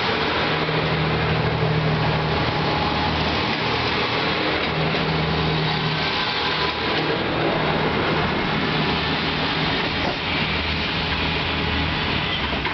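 A three-car train of KiHa 220 and KiHa 200 diesel railcars pulling away from a station, its diesel engines running under power as the cars roll past. The low engine note swells and eases a few times as it accelerates.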